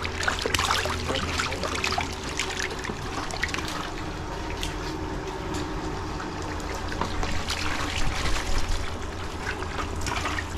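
Water splashing and trickling in irregular bursts, over a steady low hum.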